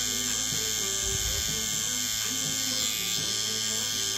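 Tattoo machine with a cartridge needle buzzing steadily as it shades skin.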